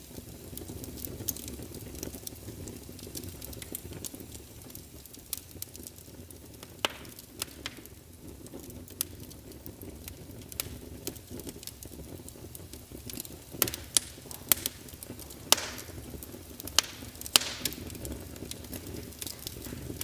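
Wood fire in a fireplace crackling, with scattered sharp pops over a steady low rumble. A run of louder pops comes in the second half.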